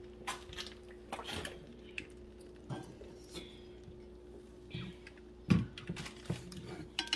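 Scattered light clicks and knocks of kitchen utensils against a small pot and dishes, with one louder knock about five and a half seconds in, over a steady low hum.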